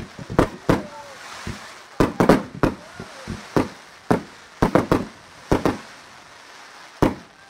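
Display fireworks going off in quick, irregular clusters: about fifteen sharp bangs over several seconds, with brief lulls between the clusters.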